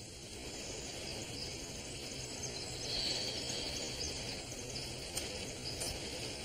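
Forest ambience: a steady high hiss of insects with faint bird chirps, and a couple of light clicks near the end.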